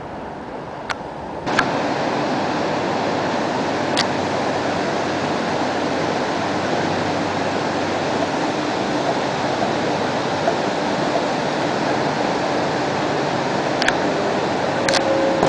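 Two-system tram-train moving past along a station platform under the train shed: a steady, even rolling noise of wheels and running gear, echoing in the hall, with a few sharp clicks. It starts suddenly about a second and a half in, after quieter street noise.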